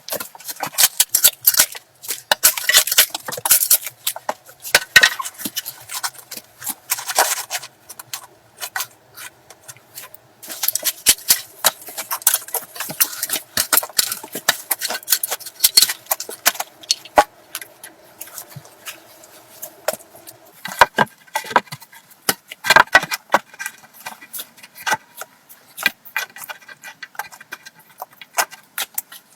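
Dense, irregular clicking, knocking and scraping of manual building work, with a faint steady tone underneath from about 8 to 20 seconds in.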